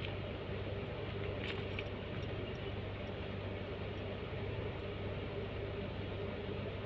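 A motor or engine running steadily with a constant low hum, with a couple of faint clicks about a second and a half in.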